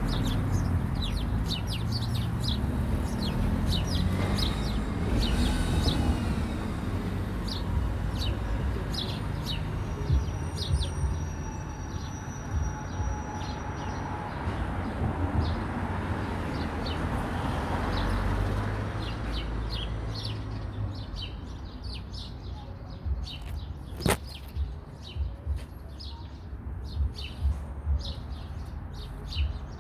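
Small birds chirping over and over with short, quick, high calls, over a steady low rumble.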